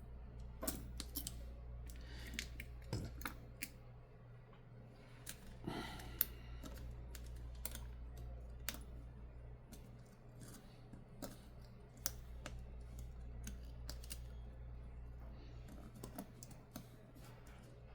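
Irregular small clicks and taps of tools and small phone parts being handled and fitted during smartphone reassembly, over a steady low hum.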